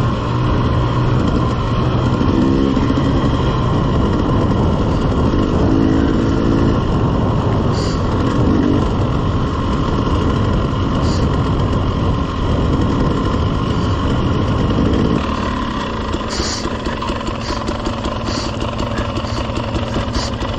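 Dirt bike engine running steadily while riding. About fifteen seconds in, the engine note steps down lower and a little quieter.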